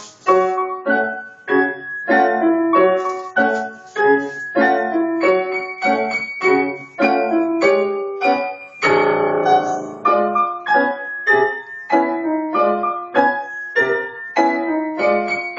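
C. Bechstein grand piano played live: a merry march of short, detached chords struck on a steady beat, about two a second.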